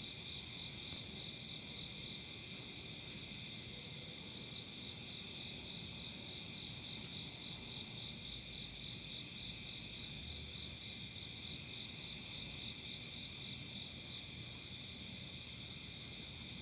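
Steady chorus of singing insects, crickets or similar, a continuous high trill in several pitch bands, one of them rapidly pulsing.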